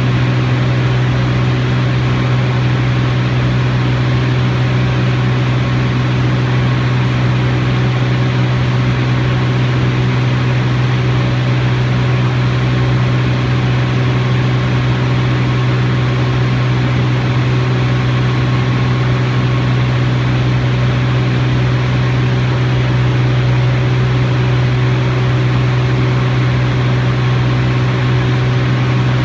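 Steady, unchanging drone of a T-34 Mentor's piston engine and propeller in flight.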